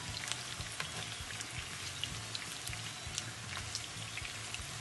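Pepper-marinated chicken pieces shallow-frying in hot coconut oil in a pan: a steady sizzle with scattered crackles and pops of spitting oil.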